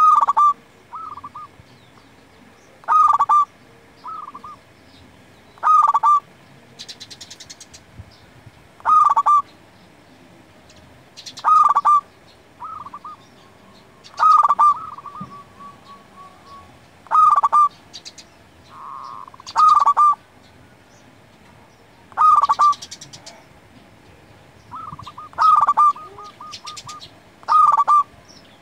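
Zebra dove (perkutut) cooing its song: a strong note followed by a short run of quicker, softer notes, repeated about every three seconds.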